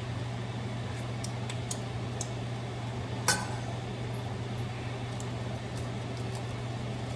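A metal spoon clinks lightly against a stainless-steel frying pan a few times, then strikes it once sharply with a short ring about three seconds in as it is laid in the pan, over a steady low hum.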